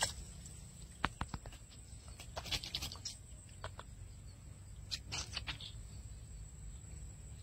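Faint handling noise: a few scattered clicks and soft rustles in short clusters over a steady low hum.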